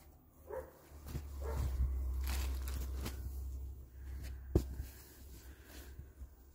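Silk saree cloth being handled and laid out, rustling, with a low rumble of handling noise from about one to four seconds in and a sharp knock just after four and a half seconds. Two short yelps sound near the start.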